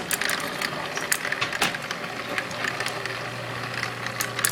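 Small electric motor in a tornado toy's base humming steadily as it spins the water, the hum settling in about halfway through. Sharp plastic clicks and knocks from the toy being handled.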